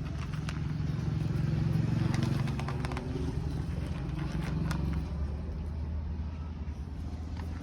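A motor vehicle's engine running steadily, loudest about two seconds in and settling lower after about five seconds, with scattered small clicks and scrapes over it.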